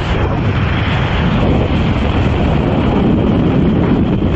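Loud, steady rush of freefall wind blasting over a skydiver's camera microphone, with no let-up.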